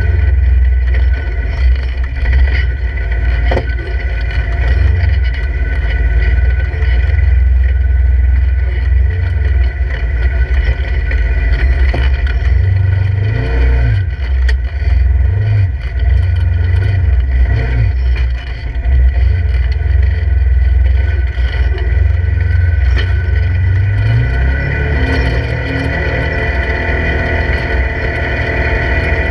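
Polaris RZR 1000 side-by-side's parallel-twin engine running under load while driving over rocky canyon trail, heard from inside the open cab. The revs rise and fall several times, then climb near the end.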